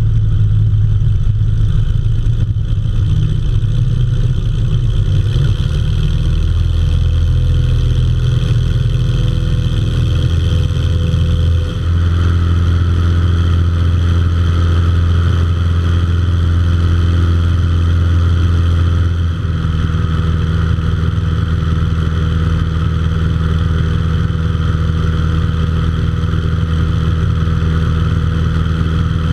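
Floatplane's propeller engine running steadily at high power, a constant drone whose tone shifts abruptly twice, about twelve and nineteen seconds in.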